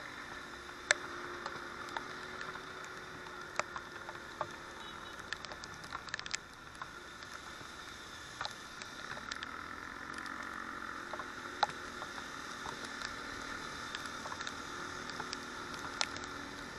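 Raindrops hitting a motorcycle-mounted camera as scattered sharp ticks, over a steady hiss of rain and tyres on the wet road and a faint low engine hum.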